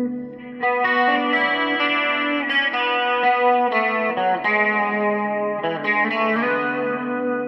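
Electric guitar chords played through a guitar amplifier, a new chord struck every second or two and left to ring.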